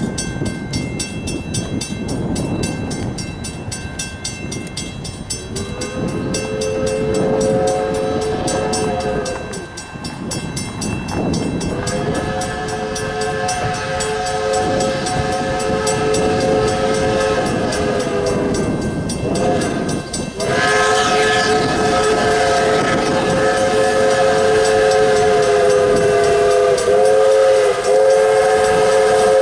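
QJ steam locomotive's multi-tone whistle blowing the grade-crossing signal: two long blasts, a short one, then a long one held, over the low rumble of the approaching train.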